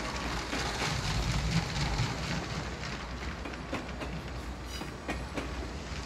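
LEGO 60051 High-Speed Passenger Train running on plastic track under its electric train motor, with a steady running hum and scattered clicks from the wheels passing over the track joints.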